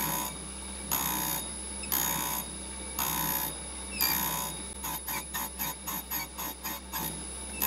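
Surface grinder's wheel grinding a test piece in repeated passes: a hiss of about half a second roughly once a second, turning quicker, about four or five a second, for the last couple of seconds, over the steady hum of the motor.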